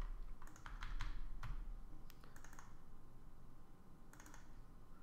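Scattered clicks from a computer mouse and keyboard: a cluster in the first second and a half, a few more around two and a half seconds in, and a pair about four seconds in, over a faint low hum.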